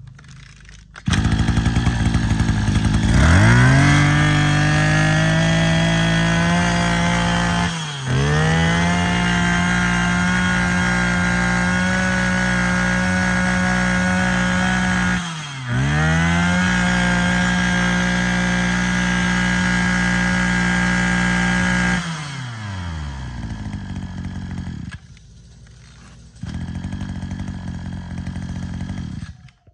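Maruyama 23cc two-stroke brush cutter engine starting up and then run at full throttle in three long, steady high-pitched stretches, with the revs dropping briefly between them. It then falls back to idle, sags briefly, idles again and cuts off near the end.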